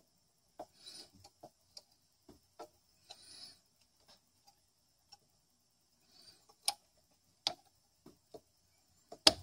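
Soldering iron tinning a wire: a few short sizzling hisses of melting solder and flux, among scattered small clicks and taps of the iron and wire against the metal chassis. The sharpest clicks come in the second half.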